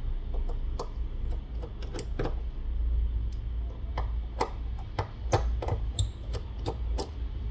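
Irregular small sharp clicks and taps of a precision screwdriver and tiny screws as the top screws are taken out of an opened smartphone's midframe and set down, over a low steady hum.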